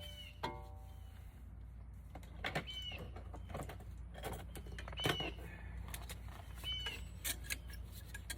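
Scattered metallic clicks and knocks of hand tools working on a car's front brake caliper, over a low steady hum, with a short high chirp repeating about every two seconds.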